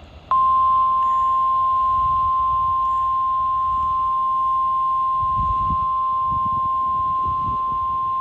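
NOAA Weather Radio warning alarm tone: a single steady, unbroken 1050 Hz beep that starts a fraction of a second in. It is the alert signal that sets off weather radios ahead of a broadcast emergency message, here a tornado watch.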